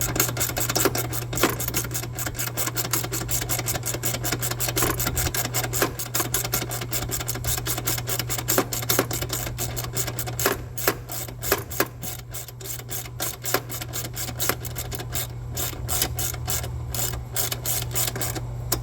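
Hand ratchet wrench clicking in quick runs as mount bolts are tightened down, with short pauses between runs. A steady low hum runs underneath.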